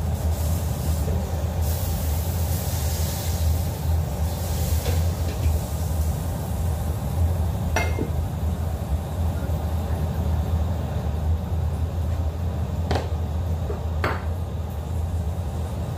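Steady low rumble from the lit gas stove, with a few sharp metal clinks of pot lids being handled: one about halfway through and two near the end.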